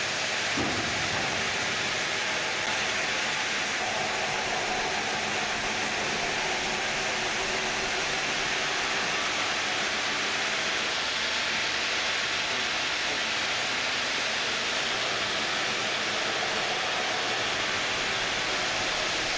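Ring-system granite block cutting machine running and cutting hard stone: a steady, unbroken hiss.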